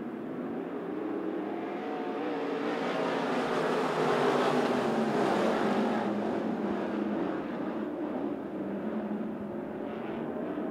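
A field of IMCA SportMod V8 dirt-track race cars running at racing speed, several engines at once. The sound swells as the pack comes past, loudest about halfway through, then eases off.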